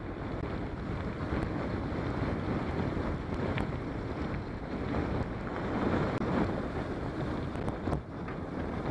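Wind buffeting the microphone of a camera mounted on a moving mountain bike, over the rumble of knobby tyres rolling on a gravel forest track, with a few sharp clicks and rattles from the bike.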